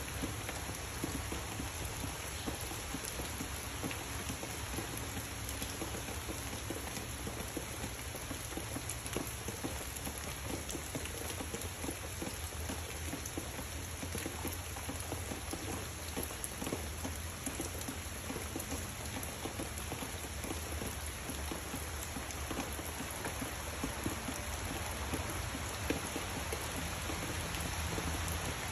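Steady rain falling on leafy trees and vines, an even hiss with many individual drops, growing a little heavier near the end.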